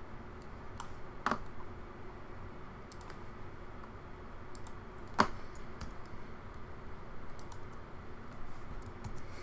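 Scattered clicks of a computer keyboard and mouse, with two sharper clicks about a second in and about five seconds in, over a faint steady background hum.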